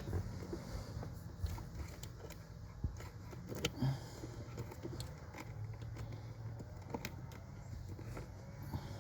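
Scattered light clicks, ticks and rustling of hands handling wiring and zip ties, over a steady low hum.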